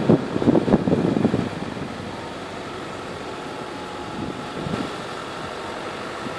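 A car engine running with road noise heard from inside the car, moving slowly in traffic. There is a louder burst of noise in the first second and a half.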